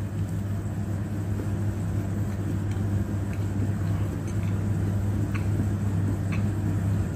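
A steady low hum, with a few faint crunches of someone chewing a seaweed-wrapped bite in the second half.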